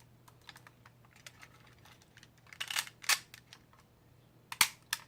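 Small plastic Kodak Star 110 camera being handled: a run of light clicks and taps, with a few louder clicks about two and a half to three seconds in and again near the end.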